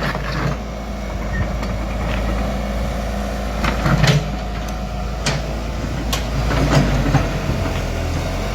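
Excavator's diesel engine running steadily, with several short sharp knocks about halfway through.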